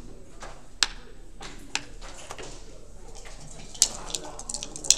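Plastic backgammon checkers clicking as they are set down on the board: two sharp clicks about a second apart, then a quicker run of clicks near the end.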